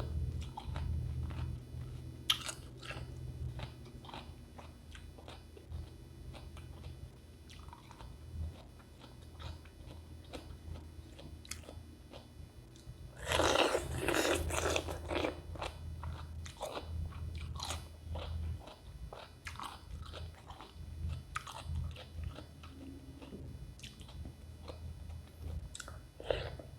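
Close-up crunching and chewing of raw cucumber: a crisp bite about 2 s in, a louder run of crunching bites about halfway through, and steady wet chewing clicks in between.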